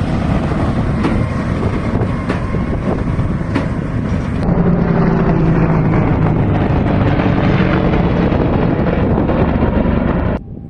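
Case tractor and New Holland 1290 Plus big square baler working, baling straw: a loud, steady machinery noise with wind on the microphone. Knocks come about once a second in the first half, then a steady low engine hum comes up, and the sound drops off suddenly near the end.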